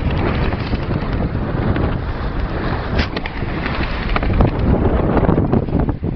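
Strong Force 6 wind buffeting the microphone aboard a small sailboat under sail, a loud, steady rush heaviest in the low end, with a few short sharp ticks near the end.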